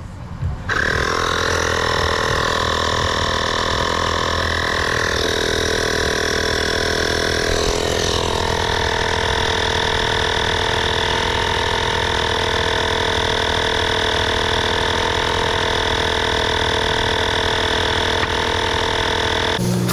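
Portable tire inflator's small air compressor switching on about a second in and running steadily while it pumps up a minivan tire, its pitch shifting slightly a couple of times, then stopping abruptly near the end.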